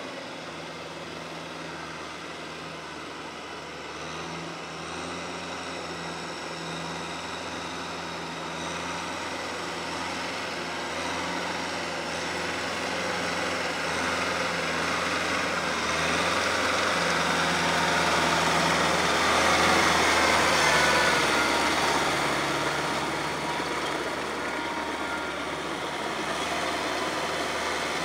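Kubota M6040SU tractor's diesel engine running steadily under load as it pulls a rotary tiller through wet paddy mud. It grows louder as the tractor comes closer, peaks about two-thirds of the way through, then eases off a little.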